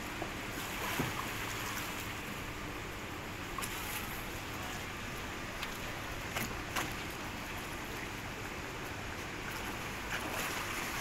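Shallow floodwater sloshing and splashing around wading feet and a plastic sit-on-top kayak as it is moved in the water, with a few light knocks.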